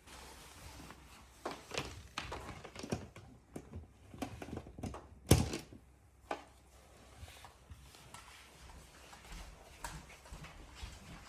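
Scattered knocks and clicks of objects being handled, with one loud sharp knock about five seconds in.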